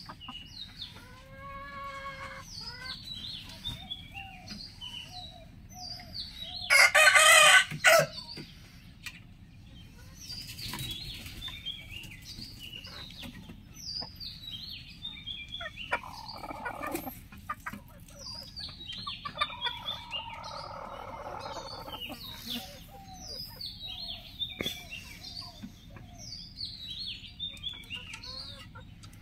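Roosters crowing: one very loud, close crow about seven seconds in, and several fainter crows later on, with hens clucking. Short, high, falling chirps repeat throughout.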